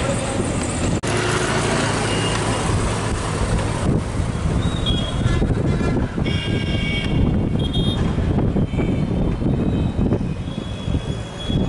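Busy city street traffic: engines running, with several short vehicle horn toots in the middle and another high horn-like tone near the end.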